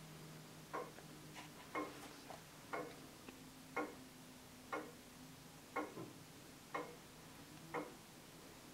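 Regulator longcase clock with a deadbeat escapement and seconds pendulum, ticking steadily at an even one tick a second.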